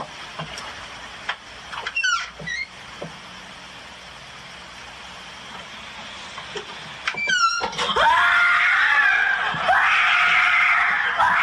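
A person screaming in fright at a scare prank, a loud, sustained, wavering scream that breaks out about eight seconds in. Before it, a quieter stretch with two short high squeaks.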